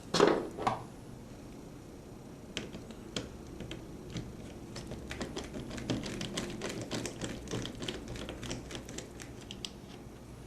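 Irregular small plastic clicks and taps of fingers working the battery lead's plug loose inside a DSC 9047 alarm keypad, with two louder knocks right at the start.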